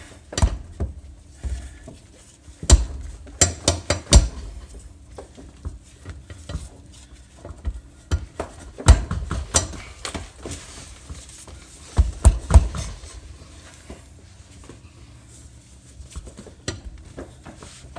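Irregular metallic clinks and knocks from hands and tools working on the underside of a car, coming in several short clusters.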